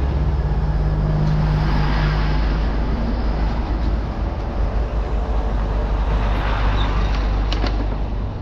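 Steady rush of wind and road noise from riding a small electric vehicle along a rough road.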